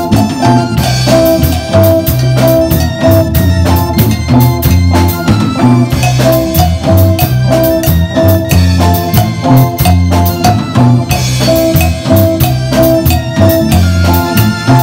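A small band playing an instrumental passage over a steady beat: drum kit with cymbal washes, electric bass, electric guitar and a Korg Triton keyboard, with a short melodic figure that comes back several times.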